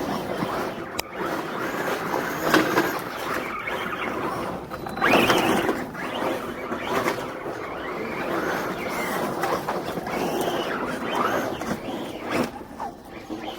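Radio-controlled car being test-driven after a gearbox repair: its motor and drivetrain running with the wheels rolling, the level rising and falling as it speeds up and slows, loudest about five seconds in.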